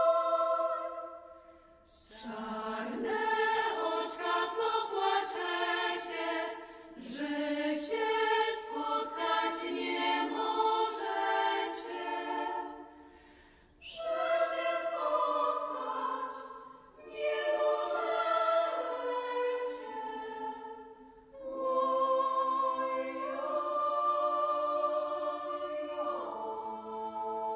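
Choir singing in long held phrases, with brief pauses between them.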